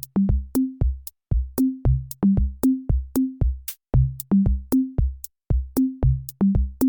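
Electronic background music: a drum-machine beat of low, pitched bass-drum hits with sharp clicks, about three hits a second.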